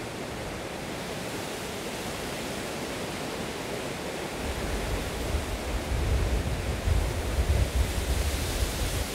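Steady rushing wind noise. From about four seconds in, gusts buffet the microphone with irregular low rumbles.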